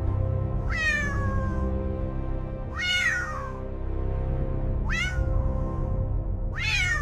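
Domestic cat meowing four times, each call about two seconds apart and mostly falling in pitch, over steady background music.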